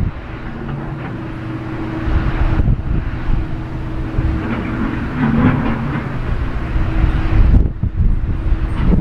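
Airbus A310-300's jet engines running with a steady hum as the airliner approaches to land, mixed with gusty wind rumbling on the microphone.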